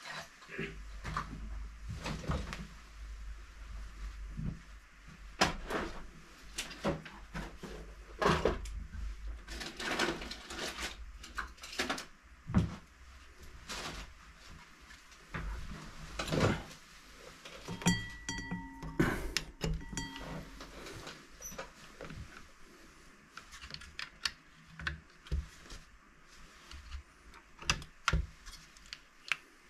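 Irregular clicks, taps and knocks of small objects and tools being handled on a workbench. A few short high beeps come about 18 to 20 seconds in.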